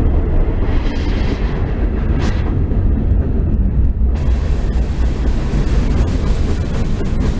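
Ferromex freight train of boxcars and gondolas rolling past: a steady low rumble of steel wheels on rail with rattling cars. The sound turns brighter and harsher suddenly about four seconds in.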